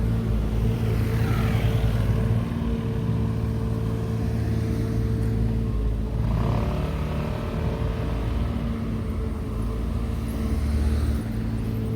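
Road traffic at a signalled junction: an engine idling with a steady low hum, and cars passing by about a second and a half in and again about six seconds in.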